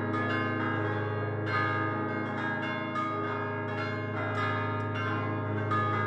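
Fixed-hung church bells from a set of five cast by Prospero Barigozzi in 1928, rung in a solemn peal by swinging the clappers by hand. Strokes follow one another every half second or so over a continuous low hum, with many overlapping ringing tones.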